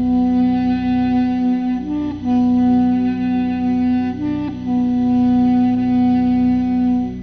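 Background music: a single melody instrument holds three long notes over a steady low drone, with a short higher note between them, and stops just before the end.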